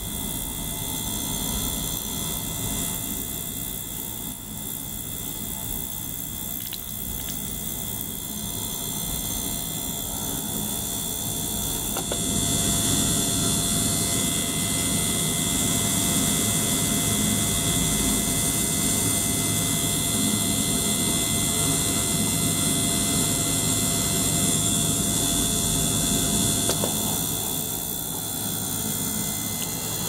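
Small ultrasonic cleaner running with a small circulation pump pushing water and air through tubing into the tank: a steady noisy hum with faint steady tones, louder from about twelve seconds in.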